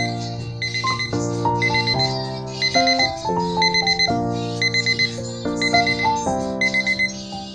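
Digital kitchen timer's alarm beeping: quick clusters of short, high beeps at one fixed pitch, repeating over background music with changing chords.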